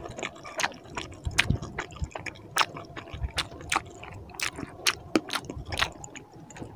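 A bare hand squishing and kneading curry-soaked rice and chicken on a plate, a string of short wet, sticky clicks.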